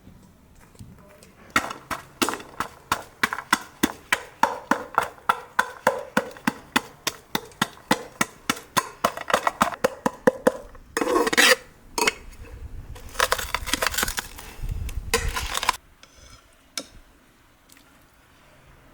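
Kitchen utensils striking in a quick, even rhythm, about four sharp knocks a second for some nine seconds, followed by a few longer scraping, rustling sounds.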